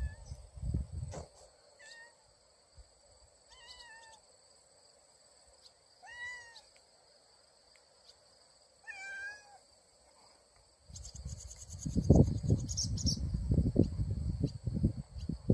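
About five short animal calls a couple of seconds apart, each rising then falling in pitch, over a steady high insect chirring. From about eleven seconds in, loud irregular low rumbling noise takes over.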